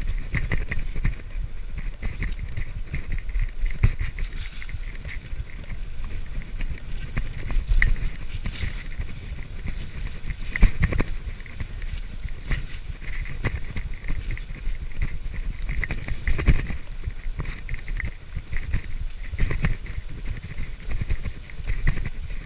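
Mountain bike riding over a rough path, heard from a camera clamped to the handlebars: a steady rumble from the tyres and frame, with the bike rattling and knocking over bumps. The sharpest knock comes about halfway through.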